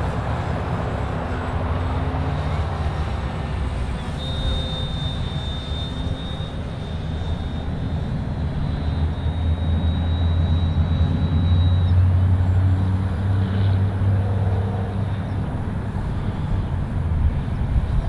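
Wind buffeting the microphone with a constant low rumble, and over it the thin, high whine of a radio-controlled plane's electric motor flying overhead, heard from about four seconds in until about twelve seconds in.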